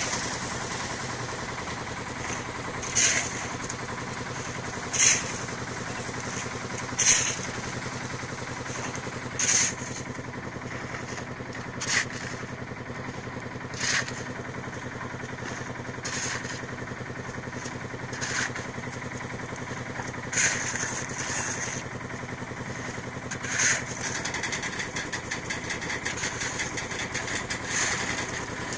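A construction machine's engine runs steadily, with sharp metallic clanks about every two to three seconds.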